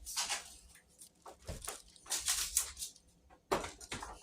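Cardboard and packing rustling and scraping, with a few dull knocks, as a table saw is pulled out of its box.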